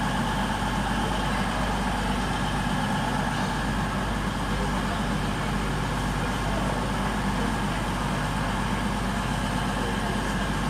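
CrossCountry Class 220/221 Voyager diesel multiple unit standing with its underfloor diesel engines idling: a steady, unchanging low drone.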